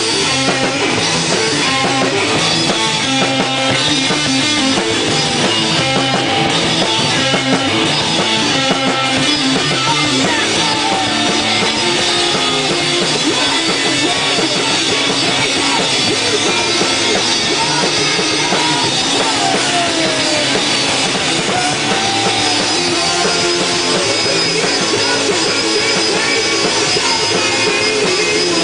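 Rock band playing loud and steady: guitars, bass and a drum kit.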